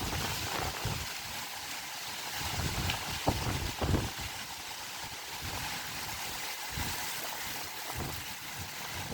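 Storm-force wind rushing steadily, with gusts buffeting the microphone a few times, most strongly about three and four seconds in.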